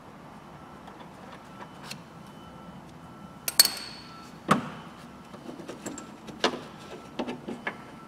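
Metal tools and fasteners clinking and knocking inside a car door as a nut and socket go onto a door handle's mounting stud. There is a sharp ringing clink about three and a half seconds in, a knock a second later, then a run of lighter, irregular clicks.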